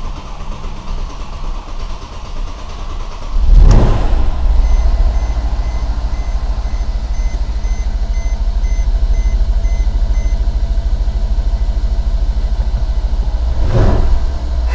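The twin-turbo V8 (M157) of a 2013 Mercedes-AMG E63 is cranked and fires about three seconds in with a short rev flare, then settles into a steady idle on its first start after a coolant repair. A dashboard chime beeps repeatedly for several seconds after the engine catches, and the revs rise briefly again near the end.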